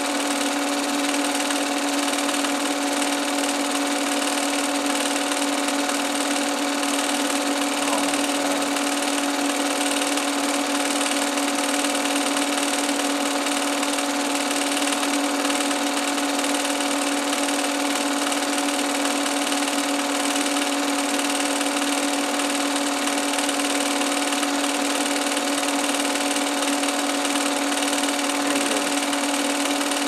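Film projector running steadily: a constant motor hum and mechanical whir over an even hiss.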